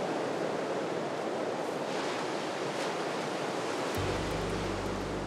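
Ocean surf breaking on the shore, a steady wash of waves. About four seconds in, low held music notes come in underneath.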